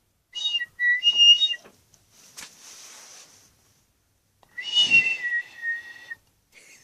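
Two high whistles, each about a second and a half long, the second falling slightly in pitch, with a short breathy hiss between them.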